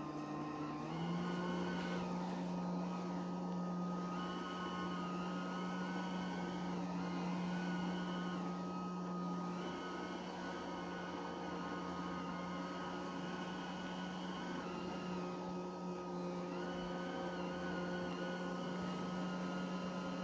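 LG Hom-Bot robot vacuum cleaner running, a steady motor and fan whir with a high whine. Its hum steps up in pitch about a second in, and the higher whine briefly fades out a few times.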